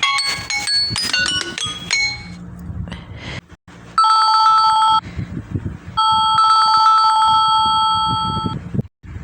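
Samsung Galaxy Note 10 ringtones playing one after another: a melodic ringtone of separate notes ends in the first two seconds, then a telephone-bell ringtone with a fast trill rings twice, about one second and then about two and a half seconds long.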